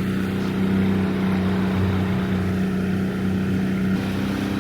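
Boat motor running with a steady low hum, its pitch stepping up slightly near the end.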